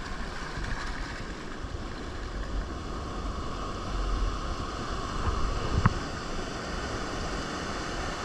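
Seawater sloshing and lapping around the wader, with a low rumble of wind on the microphone and a single sharp knock about six seconds in.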